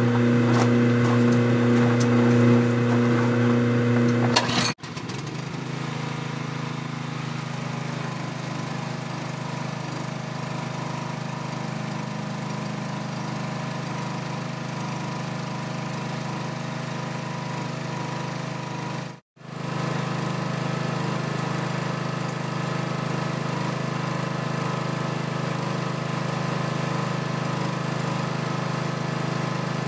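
Steady running of the Neffco bowl centrifuge and a small engine-driven water pump, with water feeding through the bowl. The sound is louder, with a few clicks, for the first five seconds, then drops off suddenly and carries on as an even hum, cut briefly about two-thirds of the way through.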